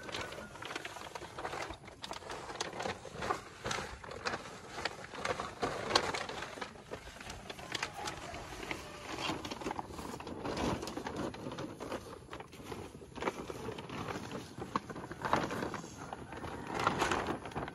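Camping gear being handled in a van's rear cargo area: irregular rustles, bumps and knocks of bags and packs. Near the end, a large plastic tarp rustles and crinkles as it is unfolded.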